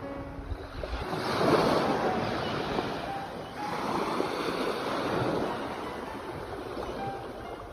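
Sea waves breaking and washing on the shore, the surf swelling twice before settling back.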